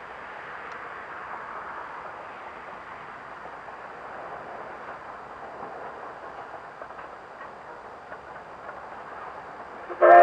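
Distant steam locomotive working along the line, a steady running noise with faint beats, then one short, loud blast of its steam whistle at the very end.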